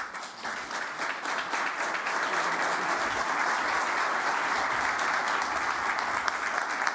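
Audience applauding: many hands clapping, building up over the first second or so and then holding steady.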